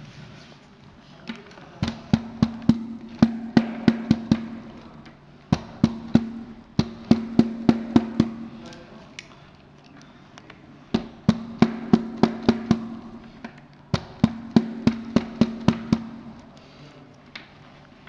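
Repeated knocking in four bursts of about six to ten strikes, with a low ringing from the board under each burst: wooden dowels being tapped into their holes in the stand's panel.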